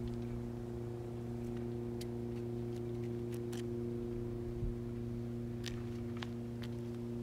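A steady low hum made of several held tones, unchanging throughout, with a few faint clicks scattered through it.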